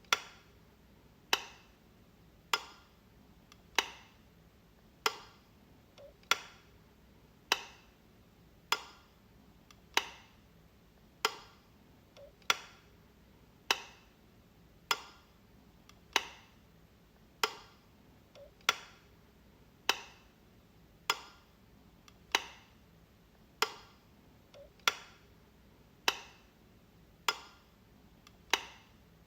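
Light switch being flicked over and over, one sharp click about every second and a quarter, some with a faint small click just before.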